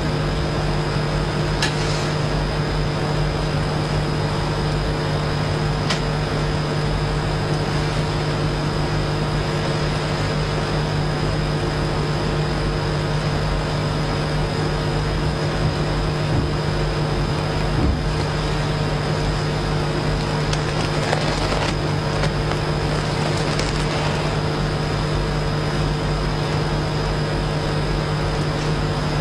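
Steady electrical hum and hiss with a few fixed tones, the loudest sound throughout, with occasional faint clicks and soft scratching of a calligraphy brush on paper.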